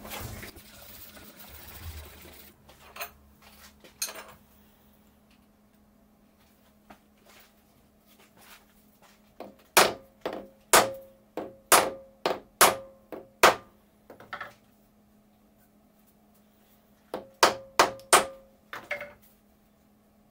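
Soft-faced mallet tapping a steel block down in a milling-machine vise to seat it. A run of about eight sharp knocks, roughly two a second, each with a short ring, then a pause and about four more knocks near the end. Earlier there are a few lighter clanks as the vise and block are handled.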